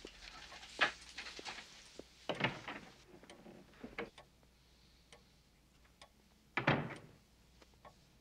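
Small movement noises in a quiet room: a few scattered clicks and light knocks, with two short louder rustling noises about two and a half and six and a half seconds in.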